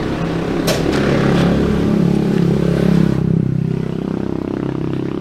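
A motor vehicle engine running steadily, its pitch lifting a little over the first few seconds and then settling. There is one light click about a second in.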